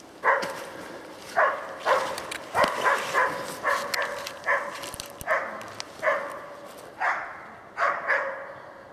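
Hunting dog barking at bay at a wounded wild boar: about a dozen barks at an uneven pace, some in quick pairs and threes. This bay barking is the sign that the dog is holding the boar.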